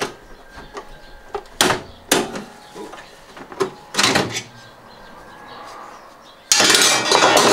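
Knocks and clunks from parts being worked loose on top of a stripped-down front-loading washing machine, with a few sharp bangs spread through and one that rings on a little about four seconds in. Near the end comes a loud, harsh clattering burst lasting about a second.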